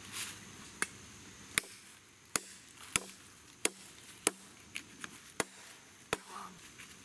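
A blade chopping into a skinned deer leg laid on a log: about ten sharp, separate chops, roughly one every two-thirds of a second.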